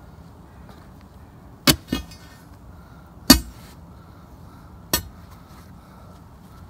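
Steel dig bar knocking four times as it is jabbed and levered around a stuck concrete septic tank lid, two quick hits close together, then a louder one with a short metallic ring, then a last one near the end.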